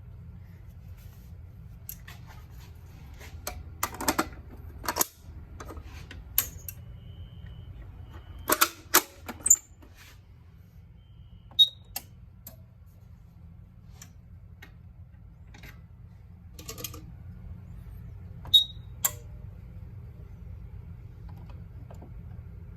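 Irregular mechanical clicks and clacks, single or in quick clusters, over a steady low hum.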